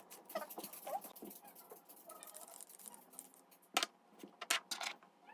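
Short squeaky animal vocal sounds, one after another, with a few sharp clicks near the end.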